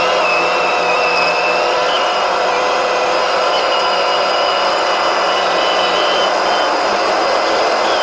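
Engine of a tracked snow vehicle running steadily under way, a continuous drone with a high whine that wavers slightly in pitch.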